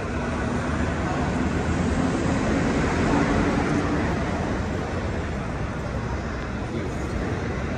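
Low rumbling noise in an underground metro station, with a steady low hum; it swells to a peak about three seconds in and then eases off.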